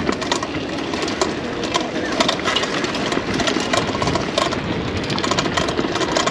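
Busy market street noise heard while riding a bicycle: passing traffic and background voices over a constant fast rattling.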